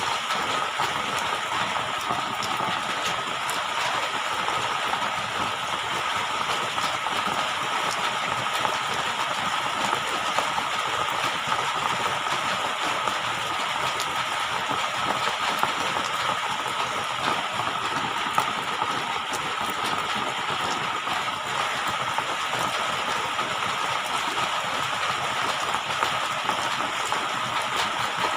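Steady rushing water noise with scattered faint ticks, unchanging throughout.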